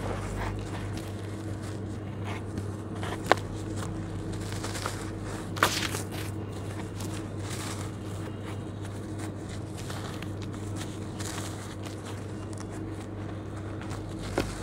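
Hands crumbling a damp lump of charcoal-and-sand mix, with crumbs and grit dropping into wet mix in a plastic basin. A few sharp clicks stand out, about three and a half and six seconds in, over a steady low hum.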